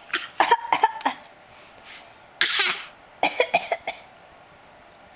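Fits of coughing: a quick run of short coughs, a longer harsher cough about two and a half seconds in, then another quick run of coughs.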